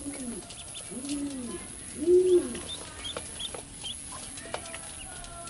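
Ducklings peeping in short high chirps, over a run of four low, rising-and-falling cooing calls from another bird, about one every second; the third, about two seconds in, is the loudest.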